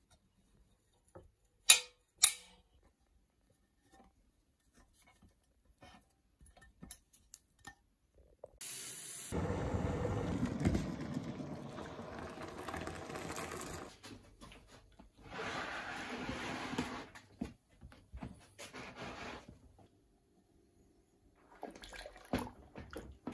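Two sharp clicks about two seconds in. Later, water is poured from a jug into a plastic tub of foamy soapy water, a steady splashing pour of several seconds, followed by shorter bursts of splashing and sloshing as a lawnmower engine crankcase is moved in the suds near the end.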